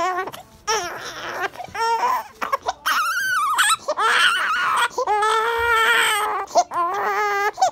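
Infant crying in a run of wails: short cries at first, a higher squealing cry about three seconds in, then longer, steadier wails from about five seconds on.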